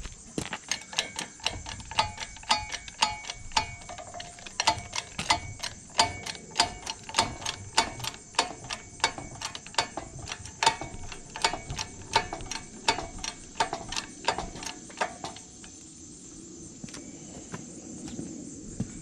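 Metal ratchet clicking steadily, about three clicks a second with a slight metallic ring, during tractor axle work; the clicking stops about three-quarters of the way through, leaving a few scattered clicks.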